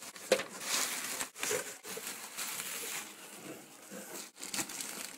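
Bubble wrap and a clear plastic bag crinkling and rustling as a circuit board is unwrapped from its packing, with a few sharper crackles among the rustle.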